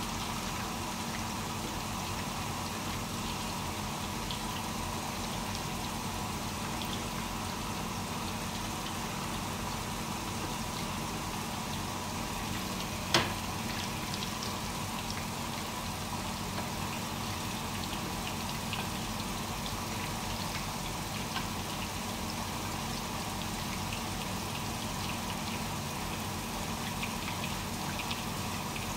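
Chicken koftas shallow-frying in hot oil in a pan, a steady sizzle with fine crackles. A single sharp click about 13 seconds in.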